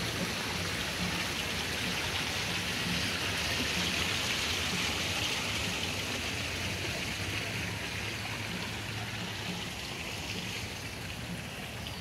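Running water: a steady rush that swells in the middle and fades toward the end.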